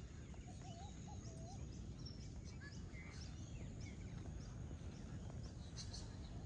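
Faint outdoor ambience: a steady low rumble with scattered small bird calls and chirps over it, including a short wavering warble from about half a second to a second and a half in.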